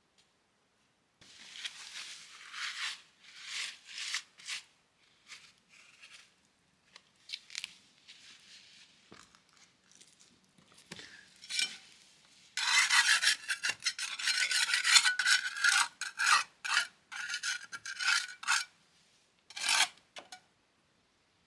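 Rasping scrapes of a hand tool working concrete and stone, in scattered strokes at first, then a run of quick back-and-forth strokes in the second half.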